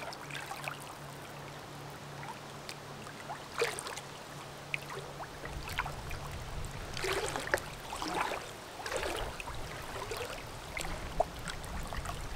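River water splashing and sloshing in scattered bursts as people wade and swim, busiest around the middle. A low steady hum runs through the first half, and a low rumble comes in about halfway.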